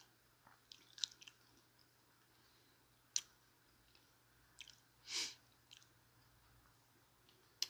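Faint chewing of a chicken taco, with scattered wet mouth clicks and a short louder crunchy chew a little past the middle.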